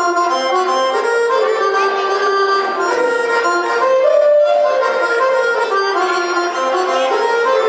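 Live Vlach folk dance music from an accordion-led band, the accordion playing a fast-moving melody of short notes over the accompaniment.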